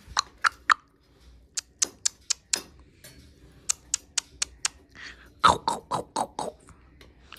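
Short, sharp clicks in four quick runs of three to five, about four a second. The last run, about five and a half seconds in, is fuller and lower.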